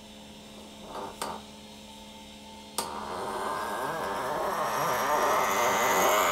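Steel rod being pressed into a 3D-printed plastic worm gear in a vise as a tight interference fit. After two short clicks, a loud grinding squeal starts suddenly about three seconds in and keeps swelling, its pitch slowly rising.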